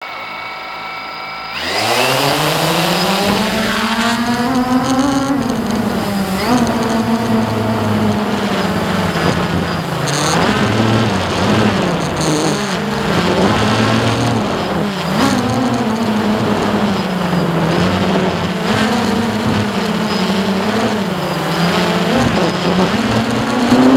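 Hubsan H109S X4 Pro quadcopter's motors and propellers spinning up about a second and a half in as it lifts off, then a steady buzzing whine whose pitch wavers up and down as it flies, heard close from its onboard camera.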